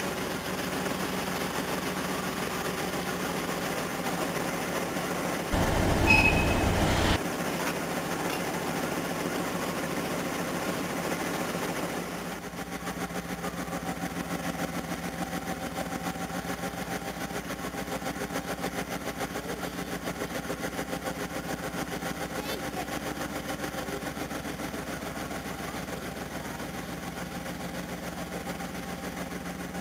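Diesel-engine idling sound from a model diesel locomotive, a steady hum with a fine throb. A brief louder burst comes about six seconds in, and the engine note changes about twelve seconds in.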